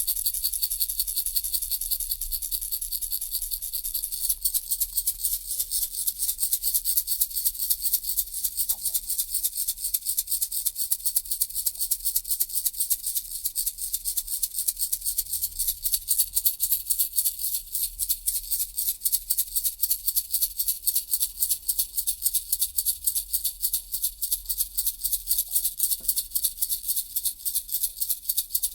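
Baby rattle shaken steadily in a fast, even rhythm, its beads giving a bright, hissing rattle; the strokes become more distinct and a little louder about four seconds in.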